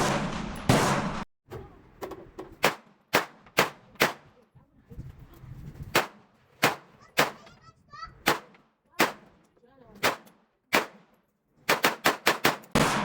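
Gunshots from firearms on a shooting range: a long series of single sharp shots, mostly half a second to a second apart with a few longer gaps, then a quick string of five or six shots near the end.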